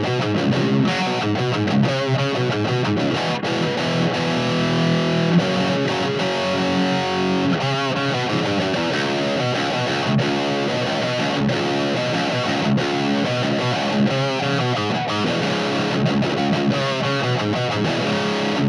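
Distorted electric guitar riff played through a guitar amp and speaker cabinet, a steady stream of overdriven notes and chords without a break.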